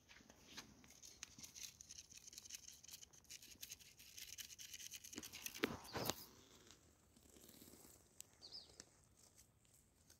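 Faint, irregular scratching and rustling on dry sandy ground and grass, with a few louder knocks about five to six seconds in, after which it turns quieter.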